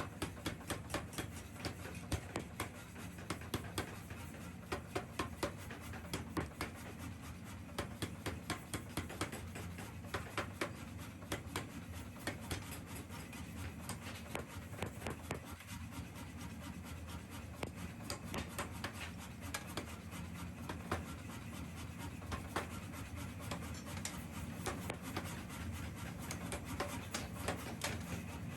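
Metalworking in a small forge workshop: a rapid, irregular run of sharp knocks and clicks, several a second, over a steady low machine hum.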